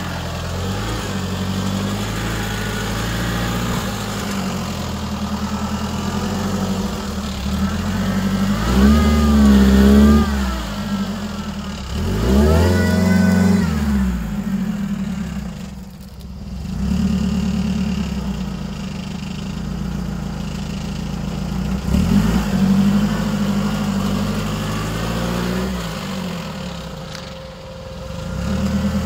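Off-road 4x4's engine running under load and revving up and down in surges, loudest about nine and twelve seconds in, with smaller surges later, as it tries to climb a slippery, muddy slope.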